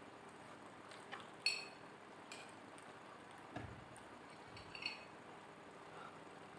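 Several sharp clinks of an eating utensil against a plate, the loudest about one and a half seconds in, with a soft low thump about halfway through.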